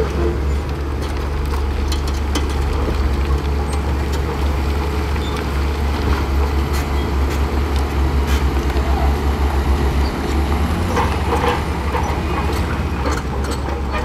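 Diesel engines of Shantui crawler bulldozers running as they push sand, a steady low rumble with scattered clanks and rattles.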